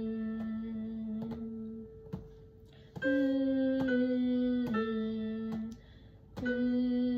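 Played-back music: a slow melody of long held notes over a second, lower part, the two moving in steps together, with a brief drop in level about two seconds in and again near six seconds.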